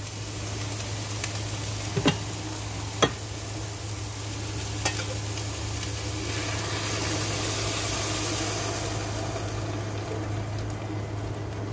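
Vegetables sizzling in a pot with a few sharp metal clinks, then chicken broth poured in from a stainless-steel pot from about six seconds in, a rushing pour over the sizzle for about four seconds. A steady low hum runs underneath.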